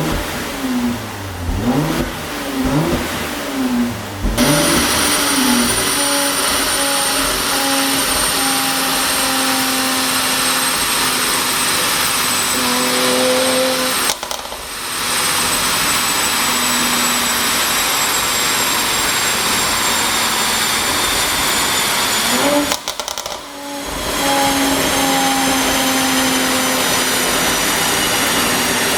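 Mercedes-AMG GLC43's twin-turbo V6 through a tuned exhaust, revved in several quick blips over the first few seconds. It then runs steadily and loud with a high whine, dropping out briefly twice.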